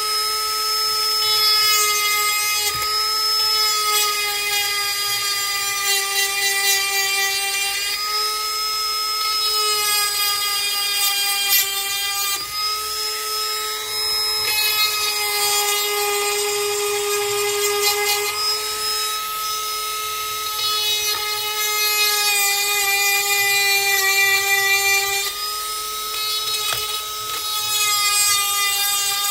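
Milwaukee M12 cordless rotary tool running at high speed with a steady high-pitched whine while sharpening a chainsaw chain. A grinding rasp comes and goes every few seconds as the bit is worked against the chain's cutters.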